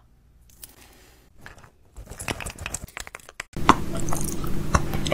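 Close-miked ASMR sounds. After a nearly quiet start come sparse crinkly clicks and crackles. From about three and a half seconds in, a steady low hum sets in under sharp crunchy mouth clicks as a man eats right at the microphone.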